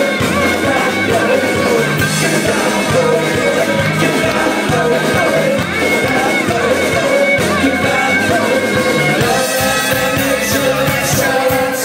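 A live country-rock band playing loudly, with upright bass, banjo and electric guitar under a singing voice and a steady beat.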